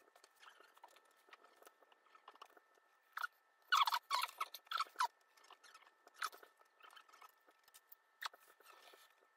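Small clicks and crunches of stiff wire ends and metal fork connectors being handled and fitted by hand. They come scattered, with a dense burst from about four to five seconds in and a few single clicks after.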